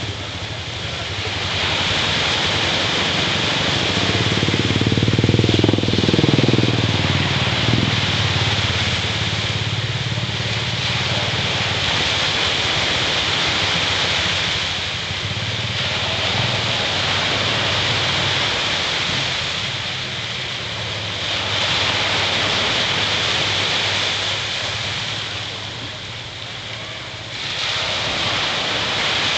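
Surf breaking on the beach, the wash swelling and fading every few seconds. An engine passes about four to eight seconds in, its pitch falling as it goes by.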